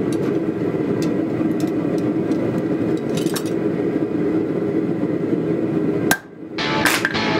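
A steady low roar with a few faint clinks through most of it. Then, about six seconds in, a hammer strikes hot Damascus steel on the anvil, and more blows come in quick succession near the end.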